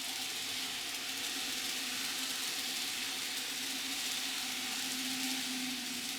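Z gauge model train running steadily: the small motor of the EF81 locomotive model hums at a steady low pitch under a constant hiss of tiny wheels rolling on the track.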